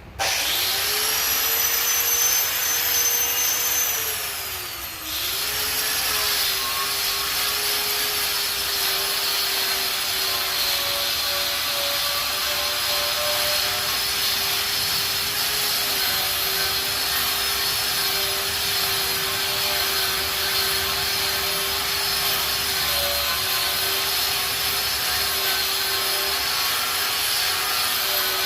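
Angle grinder with a wire wheel spinning up sharply and running at a steady high whine, scrubbing rust and paint off a steel table top. About four seconds in its pitch sags, then picks back up, and it runs on steadily.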